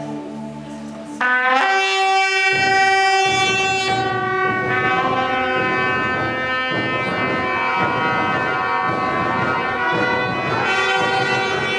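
Soft keyboard chords, then about a second in, long silver trumpets and shofars start blowing together: loud, held, overlapping blasts that continue without a break.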